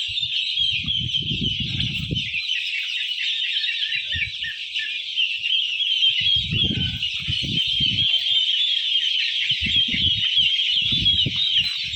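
A large flock of chickens in a poultry shed chirping and peeping continuously, many high calls overlapping into one dense chorus. Bursts of low rumble come and go beneath it.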